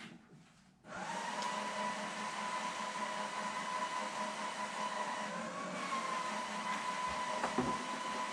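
An electric motor-driven fan or blower switches on about a second in and runs with a steady whir and a constant whine, its pitch wavering briefly near the middle.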